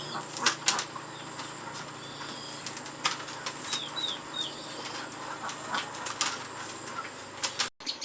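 Scattered knocks and taps, with small birds giving short falling chirps in twos and threes, once at the start and again about four seconds in.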